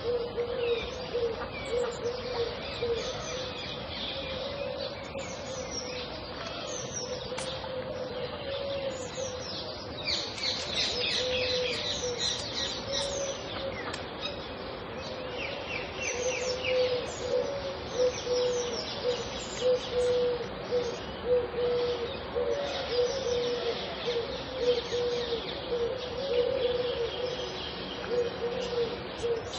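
Pond ambience with several kinds of birds: many short high chirps and trills, busiest in the middle and the later part. Beneath them runs a low call repeated over and over.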